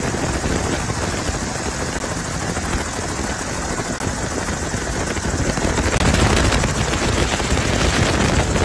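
Helicopter rotor and engine noise heard from aboard the aircraft: a steady, loud chop over a rushing drone, getting louder about six seconds in.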